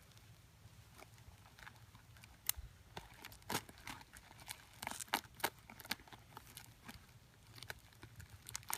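Bubble wrap and plastic packaging being handled and pulled apart: faint, scattered crinkles and ticks at an uneven pace.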